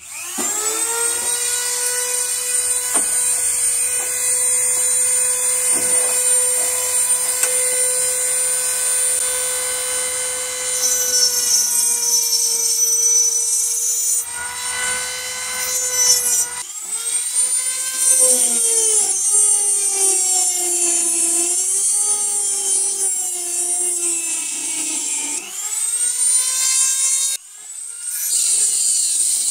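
Handheld rotary tool with an abrasive cutoff wheel cutting through the steel barrels of a double-barrel 12-gauge shotgun: a high, steady motor whine that drops and wavers in pitch as the wheel bites into the metal. It spins down and starts up again a couple of times near the end.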